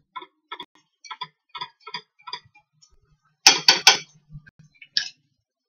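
Chopsticks clicking against a frying pan as diced chicken is stirred: a run of light, regular clicks, about two or three a second, then a louder clatter of three knocks about three and a half seconds in and a last click near the end.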